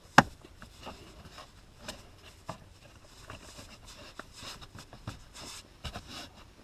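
Plastic seat trim cover being fitted and clipped into place: one sharp snap just after the start, then scattered lighter plastic clicks and taps as its hooks are worked in.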